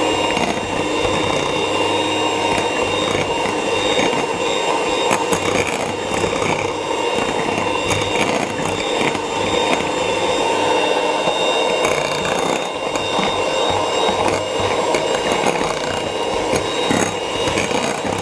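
Electric hand mixer running steadily at one speed, a continuous motor whir as its twin beaters whip eggs and sugar into a light, fluffy batter.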